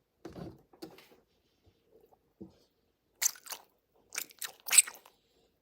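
Slime being squished and pressed by hand: a few soft squelches, then sharper crackling pops about three seconds in and again between four and five seconds, the loudest near the end.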